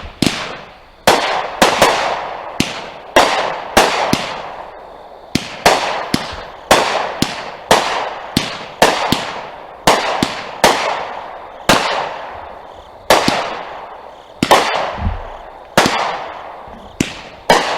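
Raccoon Fireworks 'Wild Horses' 200-gram cake firing its tubes in quick succession, about two shots a second, with a brief gap near the quarter mark. Each sharp report trails off in a fading hiss.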